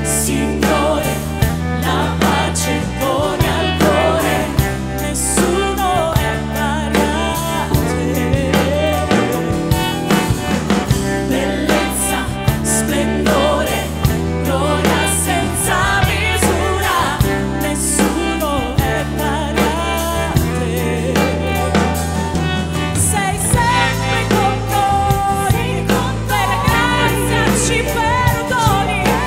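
Gospel song in Italian: women's voices singing, a solo voice and then three in harmony, backed by a choir, violins, bass and drum kit.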